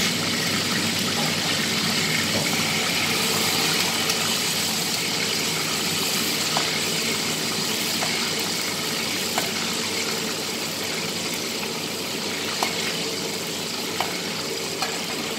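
Hot oil sizzling steadily in a wok during deep-frying, over a steady hum. A skimmer ladle clinks lightly against the pan about seven times.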